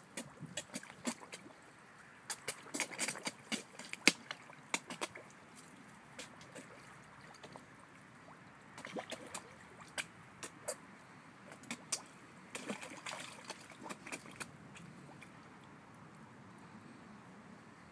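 Water sloshing and trickling, with irregular sharp clicks and splashes coming in clusters, the loudest about four seconds in; it grows quieter near the end.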